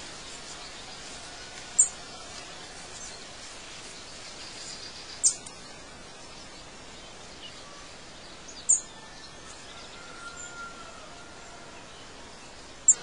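Outdoor nature ambience: a steady even hiss with a short, high chirp about every three and a half seconds, four in all.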